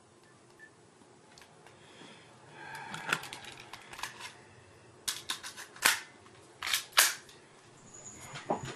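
Handgun being handled: a string of sharp metallic clicks and clacks as it is readied, the loudest two about a second apart near the end.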